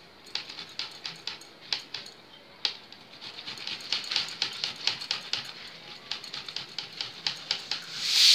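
Garlic cloves rubbed on a small stainless-steel hand grater: quick, uneven rasping strokes, a few a second. Just before the end a loud steady hiss starts and keeps going: a pressure cooker venting steam at its whistle.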